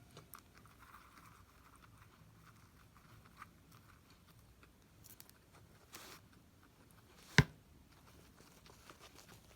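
Guinea pig chewing its food, with faint small crunches and rustles. One sharp click about seven seconds in is the loudest sound.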